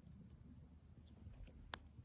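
Near silence with a faint low rumble, broken by one sharp click near the end.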